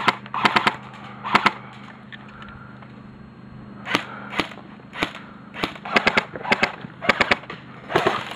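Airsoft guns firing in the field: sharp cracks and snaps, single shots and quick strings of two to four, coming more often in the second half.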